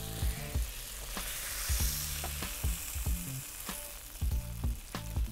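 Chopped mushrooms sizzling in a hot frying pan, with a few sharp knocks of a wooden spoon against the pan as they are scooped out.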